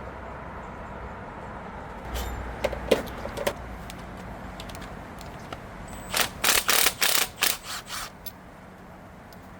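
Loose steel head bolts being handled as they come out of an LQ9 cylinder head, clinking and rattling. There are a few light clicks about two to three seconds in, then a loud quick run of about eight sharp rattling hits near the middle to the end.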